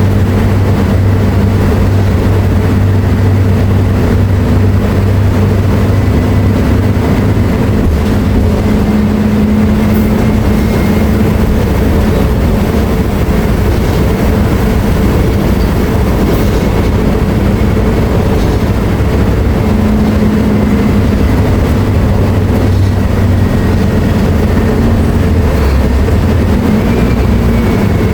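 Mercedes-Benz OF-1724L BT5 bus's diesel engine running steadily under way, a low drone with a faint high whine above it; the engine note rises a little twice, about a third and two thirds of the way through.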